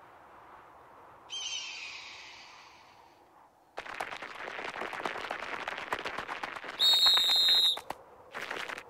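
Dense crisp crunching of small footsteps on snow, starting about four seconds in, with a short high squeaky insect-like call near seven seconds, the loudest sound. Earlier, a brief chirping call with falling pitch.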